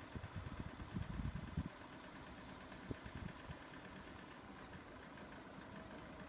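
Road vehicles idling while they wait at a closed level crossing, a low steady engine hum. For roughly the first second and a half, low rumbling buffets of wind hit the microphone.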